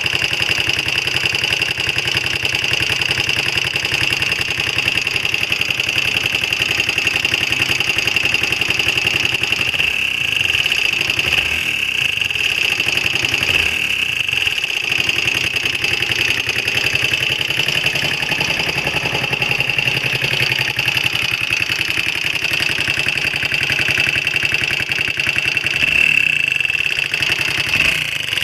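Honda XL125R's single-cylinder four-stroke engine running steadily, with a strong steady high-pitched note over the engine sound. This is the abnormal engine noise the owner is recording.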